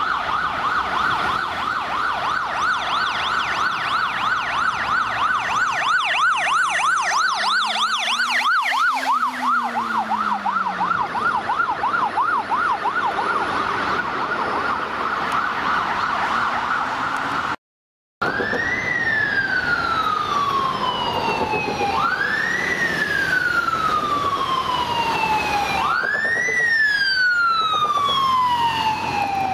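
Police motorcycle sirens. First a fast warbling yelp that drops slightly in pitch as it passes about nine seconds in. After a short break, a slow wail that rises quickly and sinks slowly, repeating about every four seconds.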